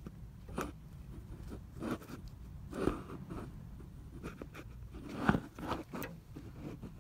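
Scattered small clicks, knocks and scrapes of a long wrench working a tight 10 mm bolt, with the loudest knock about five seconds in.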